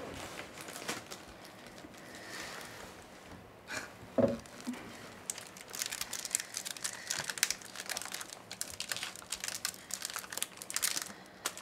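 Packaging wrappers crinkling and crackling in someone's hands, as something is unwrapped, with dense irregular crackles from about five seconds in. A single short pitched sound about four seconds in is the loudest moment.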